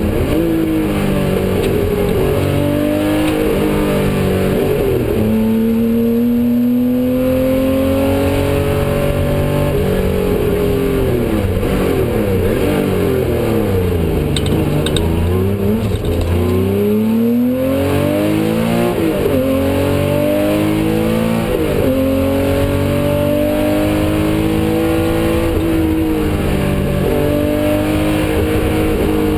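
Tuthill-built classic Porsche 911 rally car's 350 bhp air-cooled flat-six, heard from inside the cabin, being driven hard on a rally stage. It climbs in pitch through repeated gear changes, falls away under braking for a bend about halfway through, then pulls up through the gears again.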